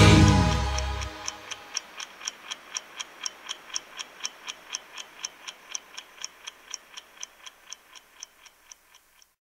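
A heavy metal band's final chord dies away, then a clock ticks about four times a second, growing louder and then fading out until it stops just before the end.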